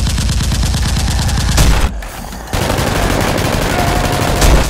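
Machine-gun fire sound effects laid over toy blasters: two long rapid bursts with a short break about two seconds in, each ending on a louder shot.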